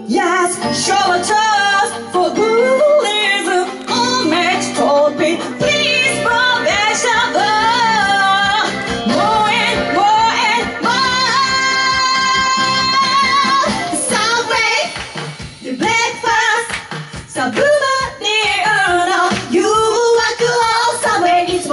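Two women singing live into microphones over instrumental accompaniment, their voices wavering with vibrato and joining in a long held note about twelve seconds in.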